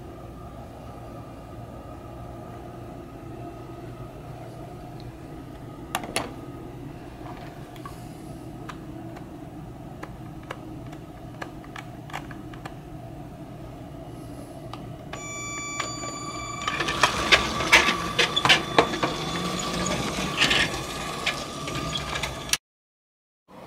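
Toy LEGO train running on plastic track with a steady motor hum. A short pitched tone sounds about 15 seconds in, followed by several seconds of louder rapid clicking and clattering, before the sound cuts off abruptly.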